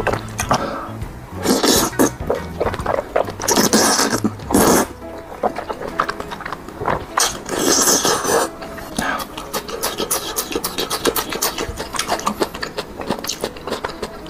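Thick rice noodles being slurped up in three long sucking pulls, with wet chewing and smacking between them.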